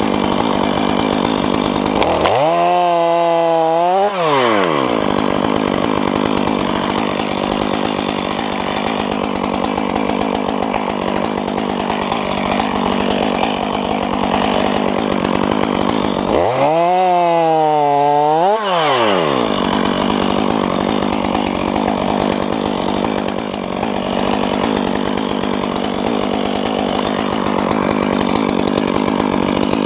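Chainsaw running under load, cutting wood, over a steady low machine drone. Twice the saw revs up and back down on its own, between cuts.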